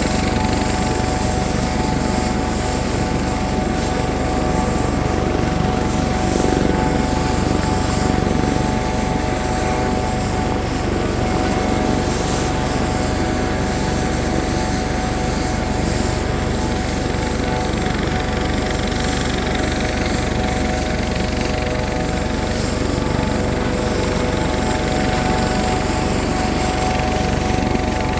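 Helicopter running steadily: a deep rotor rumble under a constant whine, with no change in pitch or loudness.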